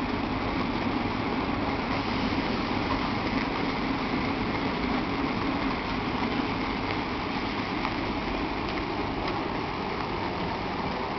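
Electric commuter train standing at the platform, humming steadily with an even, unbroken noise.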